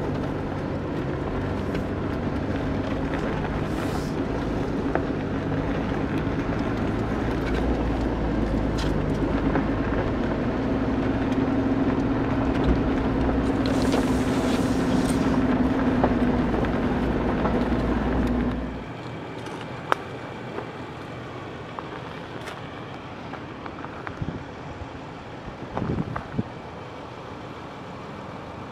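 A 2005 Jeep Wrangler Unlimited Rubicon's 4.0-litre straight-six and drivetrain running steadily as it drives slowly over a rough dirt trail, heard from inside the cab. A steady hum rides over it through the middle stretch. About two-thirds of the way in the vehicle sound drops away abruptly, leaving quieter outdoor air with a few light clicks.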